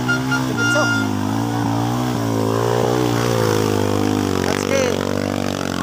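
Kawasaki KLX dirt bike's single-cylinder four-stroke engine running at low, slightly wavering revs.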